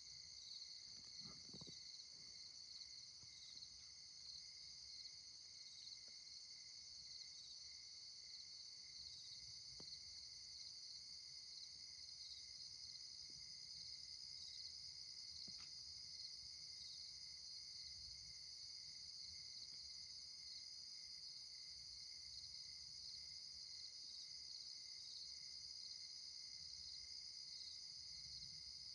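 A steady chorus of night insects trilling in high, even bands, with a faint low rumble swelling now and then underneath.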